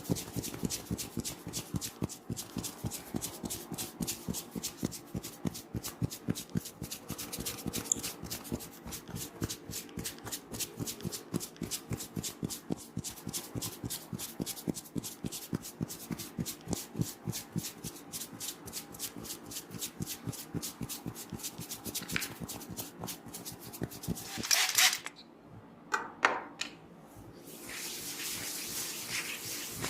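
Rapid, steady rhythm of hand taps on a person's head during a massage, several strokes a second. Near the end come two louder hits, then a steady rubbing hiss.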